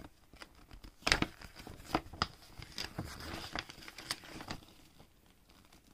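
Paper pages of an instruction booklet being turned and handled: rustling and crinkling with several sharp flicks of paper.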